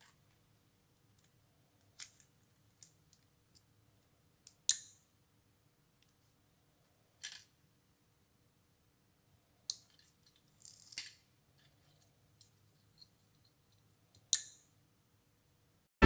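Scattered mechanical clicks from a relay board switching a small solenoid door lock as RFID tags are scanned. Two louder clacks, about five seconds in and near the end, ring briefly as the lock's plunger moves.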